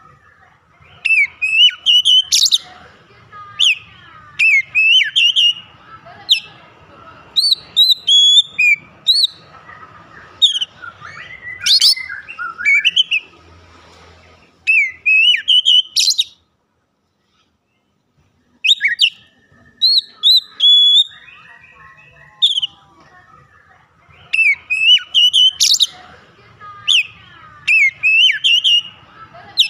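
Male oriental magpie-robin (kacer) singing loudly and continuously: a rapid run of varied rising and falling whistles mixed with sharper notes. The song cuts out completely for about two seconds a little past the middle, then resumes.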